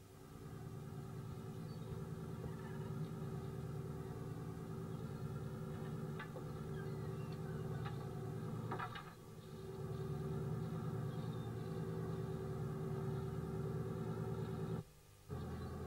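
Fishing boat's engine running steadily, with a few faint knocks in the middle. The sound dips briefly about nine seconds in and cuts out for a split second near the end.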